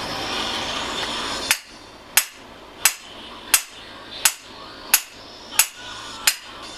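A steady hiss that cuts off about a second and a half in, then eight evenly spaced hammer taps, about one and a half a second, each with a short ringing tail.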